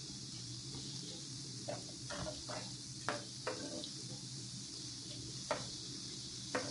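Cashews sizzling steadily as they deep-fry in hot oil in a kadai. A metal slotted spoon knocks and scrapes against the pan about six times as they are stirred.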